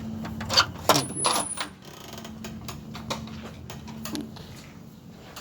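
A quick cluster of sharp knocks and clatter, the loudest about a second in, over a steady low hum.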